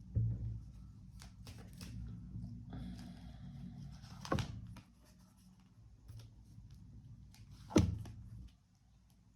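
Tarot cards being shuffled and handled, with scattered light clicks and rustles. There is a soft knock just after the start, another about four seconds in, and a louder knock near the end.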